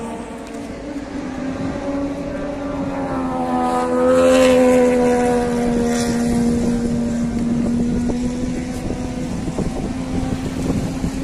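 Racing motorcycle engine running at speed on the circuit. The note swells to its loudest about four seconds in and then fades as the bike passes.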